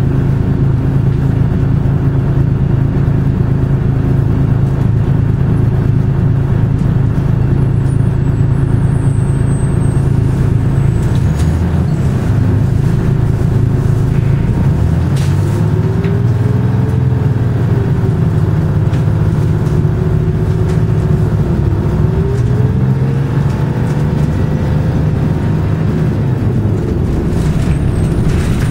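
Detroit Diesel 6V71N two-stroke V6 of a 1982 GMC Fishbowl bus running, heard from inside the cabin. A steady drone shifts about a third of the way in, then a whine rises and falls twice as the bus changes speed.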